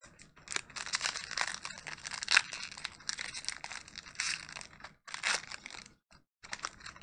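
Foil wrapper of a Pokémon trading card booster pack being torn open and crinkled by hand: crackling that stops about five seconds in and starts again a second and a half later.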